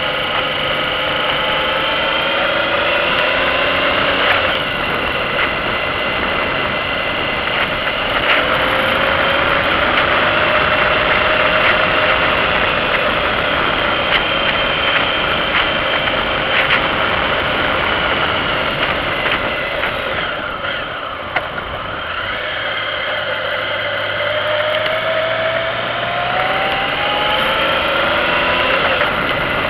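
Motorcycle engine running under load, its note falling and rising with the throttle through the bends and climbing as it accelerates near the end, over steady wind and road noise.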